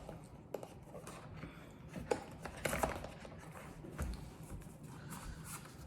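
Hands handling the drone's box contents and packaging: quiet rustling with a few sharp clicks and taps scattered through.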